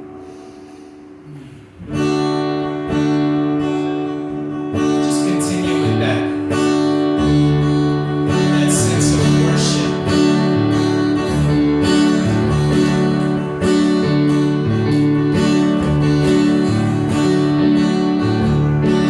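Live worship music led by strummed acoustic guitar. A quiet passage at the start gives way about two seconds in to loud, full chords that carry on steadily.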